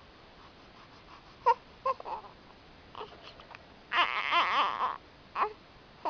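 An infant hiccuping, with short sharp hics about a second and a half and two seconds in, then a fussy cry lasting about a second, and another short hic or whimper after it.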